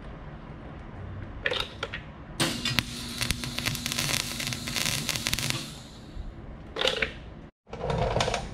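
Welding arc crackling as the steel bumper pieces are tack-welded: a short burst, one longer weld of about three seconds, then two more short bursts.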